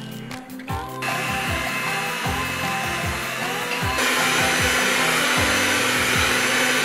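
Handheld electric mixer whirring as its beaters whip cream in a glass bowl. It starts about a second in, gets louder and higher-pitched about four seconds in, and cuts off suddenly at the end.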